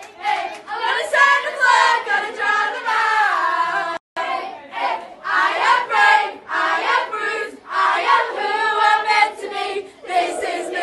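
A group of girls and children singing together loudly, excited voices overlapping. The sound drops out for an instant about four seconds in.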